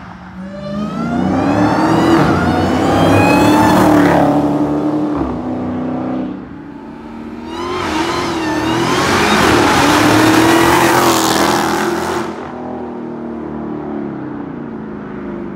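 Dodge Challenger SRT Hellcat's supercharged 6.2-litre V8 with its mid mufflers deleted, accelerating hard at high throttle twice, the exhaust note climbing in pitch through each pull and dropping away in between.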